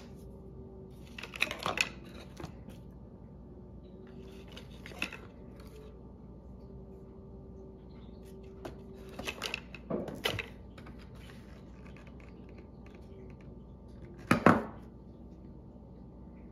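Hands handling cosmetics packaging on a stone countertop: a plastic compact clicking shut at the start, then scattered clicks, knocks and short rustles as cardboard boxes and inserts are picked up and set down, the loudest knock about fourteen seconds in. A faint steady hum runs underneath.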